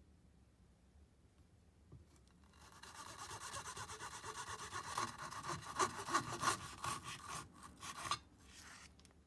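Kitchen knife sawing back and forth through a frozen Calippo ice lolly in its cardboard tube: a rapid rasping that starts about two and a half seconds in, with a few sharper crunches at its loudest, and stops about a second before the end.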